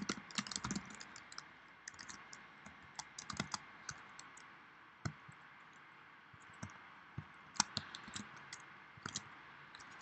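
Typing on a computer keyboard: faint, irregular keystrokes in short runs, with a lull around the middle.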